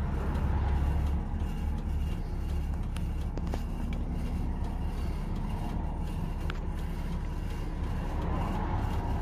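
Big bus's engine running at idle, heard from inside the cab, while it waits to pull out into traffic. A passing vehicle adds a heavier low rumble in the first second.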